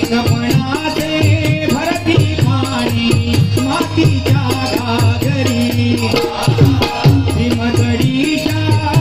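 Marathi devotional bhajan music: voices singing over a steady rhythmic drum beat, with jingling rattle-like percussion.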